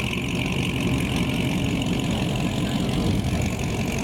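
A car engine idling with a steady, low rumble.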